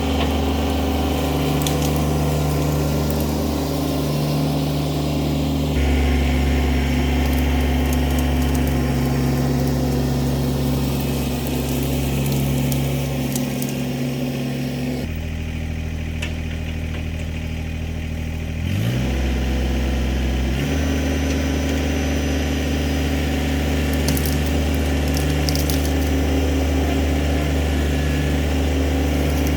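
Kubota BX23 compact tractor's three-cylinder diesel engine running steadily, its speed shifting several times, with a quick rise in revs about two-thirds of the way through.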